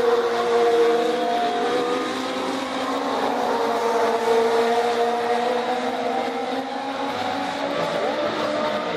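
Legends race cars circling the track, their motorcycle engines running hard with several overlapping pitches that rise and fall as the cars go through the turns.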